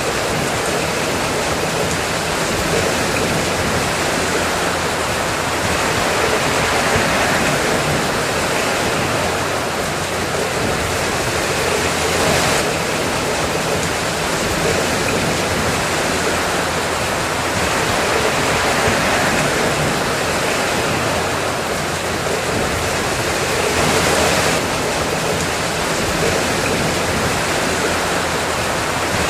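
Steady rain: a dense, even hiss of falling water that keeps on without pauses, swelling slightly now and then.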